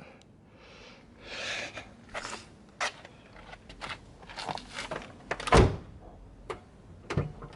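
Car door being worked from the inside on a 2007 Ford Fusion to test a newly replaced interior door handle: scattered clicks and rattles of the handle and latch, then a heavy thunk of the door a little past halfway and a smaller knock near the end.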